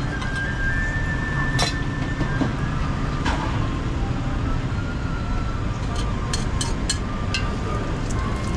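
Steady rumble of street traffic, with scattered sharp clicks and taps, several in quick succession around six to seven seconds in.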